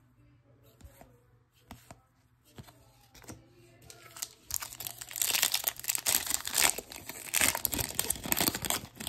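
Topps Holiday Baseball card pack wrapper crinkling and tearing as it is ripped open, loud from about four and a half seconds in. Before that, a few light clicks of trading cards being handled and laid on a table.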